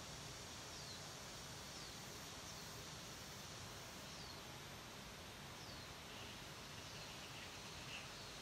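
Quiet garden ambience: a steady faint hiss, with a small bird repeating a short, falling high chirp every second or so.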